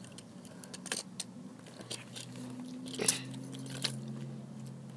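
Tin foil being crunched and crinkled in hand-cranked plastic Lego gears: scattered clicks and crackles, with the sharpest crunch about three seconds in.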